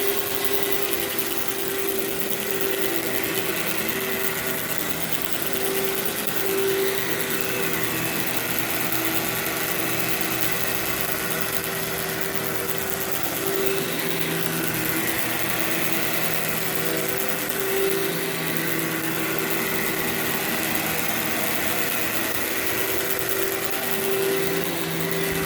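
Workhorse vacuum cleaner running steadily while vacuuming carpet, its motor hum holding one pitch under a rush of air.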